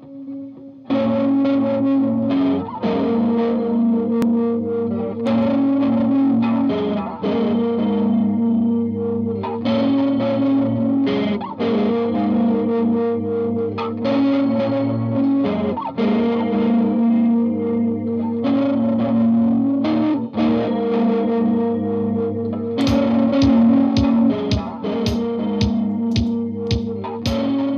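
Fender Thinline Jaguar electric guitar through a Boss RE-20 Space Echo, TC Electronic 3rd Dimension chorus and Caroline Shigeharu fuzz into a Vox AC15 amp, playing a repeating looped phrase of sustained notes with fuzz, chorus and echo. About 23 seconds in, sharper picked notes come in over the top.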